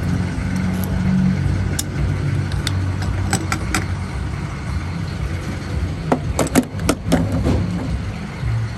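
Car engine running with a steady low rumble, a few sharp clicks, and a quick run of knocks about six seconds in.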